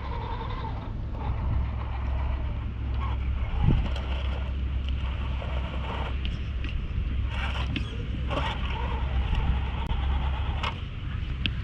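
Redcat Gen 8 Axe RC rock crawler working its way up rocks: its electric motor whines on and off while the tyres and chassis scrape and knock on stone, with scattered clicks and a thump about four seconds in, over a steady low rumble.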